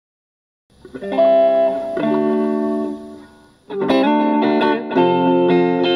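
Intro music: silence for under a second, then held chords that fade out shortly after the halfway point, followed by a fresh run of repeated chords.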